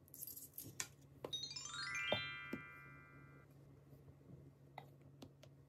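A quick rising run of bright keyboard-like synthesizer notes, stepping upward and ringing on together for about a second before fading. Several short clicks come before and after it.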